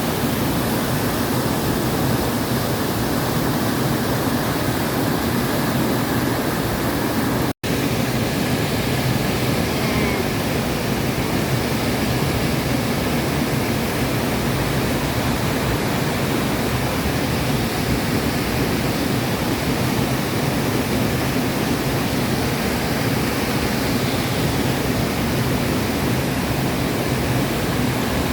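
Waterfall, a steady loud rush of falling water, broken by an instant's dropout about seven and a half seconds in.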